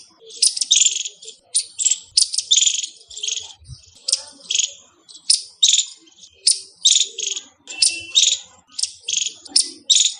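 A squirrel calling: a rapid run of short, sharp, high-pitched chirps, about two a second.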